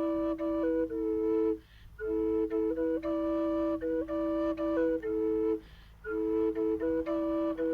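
Panther drone flute in E minor playing a gentle melody: one pipe holds a steady drone note while the other plays stepping phrases above it. The playing stops twice for a short pause.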